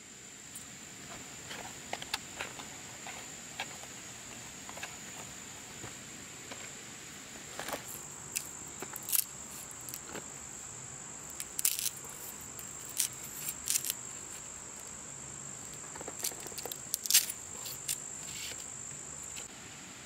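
Insects keep up a steady high-pitched whine, which stops just before the end. Scattered sharp clicks and taps come from a machete cutting a pale plant stem.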